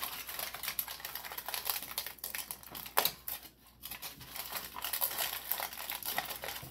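Aluminium foil crinkling and crackling as baked oatmeal cookies are peeled off it, with a sharp click about three seconds in.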